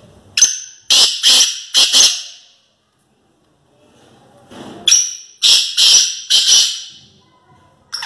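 Black francolin (kala teetar) calling: two loud phrases of about four scratchy notes each, some four and a half seconds apart.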